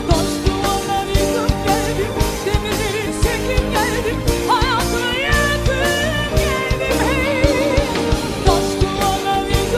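Female vocalist singing long, heavily ornamented melismatic phrases with wide vibrato, over a band with sustained instruments and a steady drum beat.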